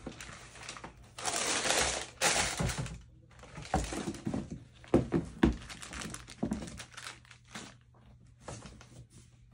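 Paper and plastic wrapping crinkling as a pair of sneakers is handled, loudest between about one and three seconds in, followed by a run of short knocks and rustles as the shoes are set down on their box.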